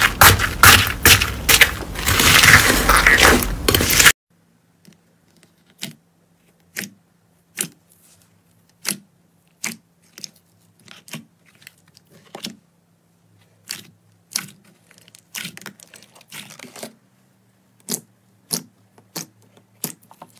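Slime worked by hand: dense, loud crackling as a crusty, fluffy slime is pressed down, cutting off about four seconds in. After that come sparse soft pops and clicks, roughly one a second, as a thick glossy slime is poked and stretched.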